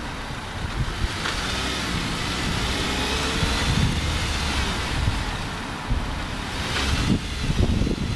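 Dodge Caliber SXT driving on asphalt: steady tyre and road noise with low wind buffeting on the microphone, the buffeting growing stronger near the end.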